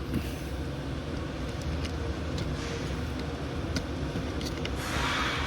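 Small plastic blaster parts being handled, giving a few faint clicks and a brief rustle about five seconds in, over a steady low background rumble.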